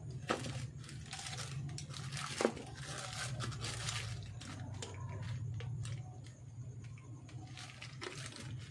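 Rustling and crinkling as copper coil wires and ferrite ring cores are handled and bent, with two sharp clicks, the first just after the start and the louder one about two and a half seconds in, over a steady low hum.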